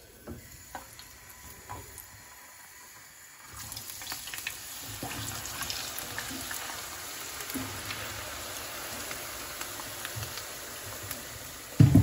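Potato wedges frying in hot oil in a pan: a steady sizzling hiss that starts about a third of the way in as the potatoes go into the oil, with a few knocks near the end.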